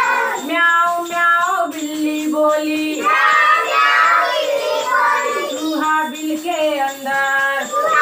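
A group of young children singing a Hindi action rhyme about animal sounds in unison, in a sing-song chant with drawn-out, held syllables.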